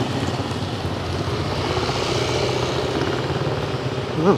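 Small motorcycle engines of passing tricycles running with a steady low drone over a haze of street noise. A brief pitched sound rises and falls near the end and is the loudest moment.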